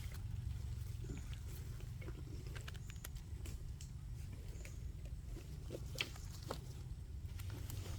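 Scattered light rustles and clicks of hands picking and handling mushrooms among leaf litter, with one sharper click about six seconds in, over a steady low rumble.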